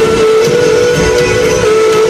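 Live rock band playing, loud, with one long held note that shifts slightly in pitch, over drums and bass.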